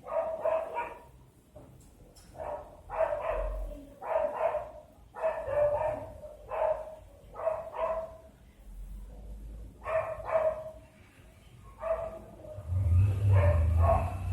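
A dog barking over and over, in short runs of two or three barks with pauses between. A low rumble comes up near the end.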